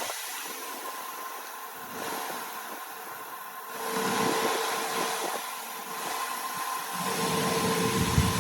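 A motor running steadily with a constant hum, growing louder about four seconds in and again near the end.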